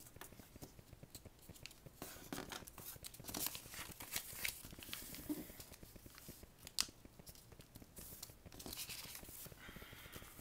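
A paper airplane being folded and creased by hand: irregular paper rustles and crinkles, with a sharp crackle about two-thirds of the way in.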